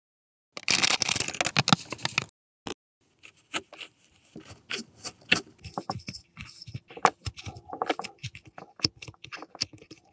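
A loud rustle for about a second and a half near the start, then fingers kneading crumbly brown toy mini-food dough inside a small plastic cup: scattered soft scraping and crackling with small clicks of fingertips against the plastic.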